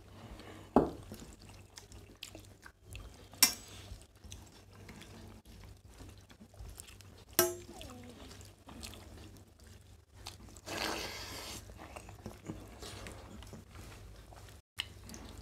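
Two people quietly eating rice and curry by hand from stainless steel plates, with soft chewing and mixing of rice and a few sharp clinks of steel dishes.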